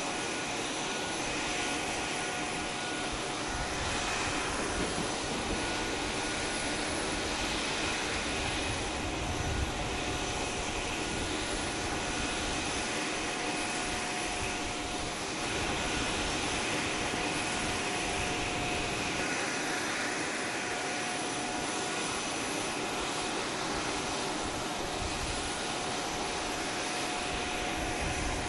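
Steady jet turbine noise from a parked C-5 Galaxy cargo aircraft: a constant rush with a few steady high whining tones over it.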